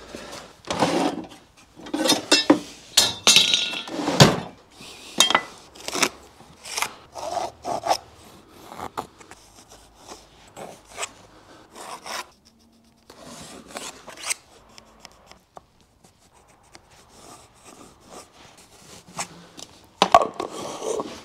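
Irregular knocks and scrapes of an oak board and small objects being handled and set down on a workbench, with a pencil rubbing along the wood as outlines are traced.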